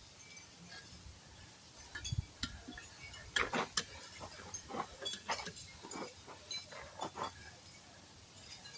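Irregular metallic clinks and knocks of hand tools against wheels and rims during tire work, with a dull thump about two seconds in and a run of sharper clinks through the middle.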